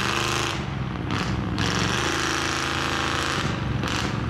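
Mud truck engine revving hard under load, its pitch rising and falling, under a dense rushing noise that drops out briefly about half a second in and again near the end.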